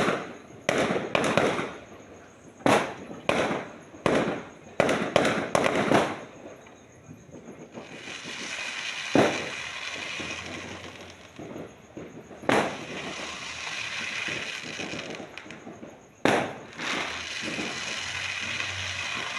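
Fireworks going off: a fast run of sharp bangs for the first six seconds, then a long stretch of crackling, broken by single bangs about nine, twelve and sixteen seconds in.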